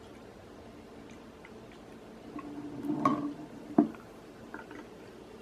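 Beer poured from a glass bottle into a glass: quiet splashing and gurgling that grows a little louder after about two seconds, with one sharp clink about four seconds in.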